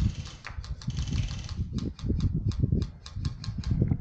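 Footfalls, gear rattle and rifle handling of an airsoft player moving to cover, with a quick regular run of sharp clicks, about six a second, through the middle.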